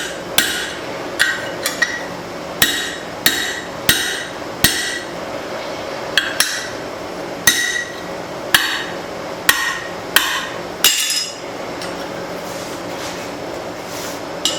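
Hand hammer striking a steel drift into a punched hole in hot spring steel on an anvil, about one blow a second with a ringing clang each time, stretching the hole out. The blows stop about eleven seconds in.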